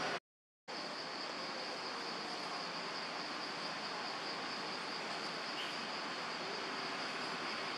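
Steady high-pitched drone of forest insects over an even background hiss. The sound cuts out completely for about half a second just after the start, then resumes unchanged.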